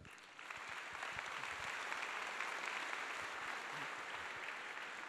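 Audience applauding at the end of a talk. The clapping swells within the first half second and then holds steady.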